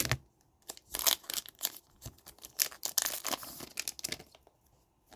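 Plastic wrapper of a hockey card pack crinkling and tearing open while the cards are handled: a run of short, irregular crackles and rips, thickest about three seconds in.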